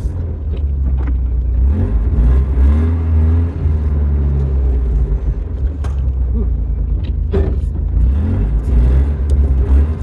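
Nissan 200SX S12's four-cylinder engine running as the car is driven on a newly installed distributor: a steady deep rumble whose pitch wavers up and down, with a couple of short sharp clicks about six and seven seconds in.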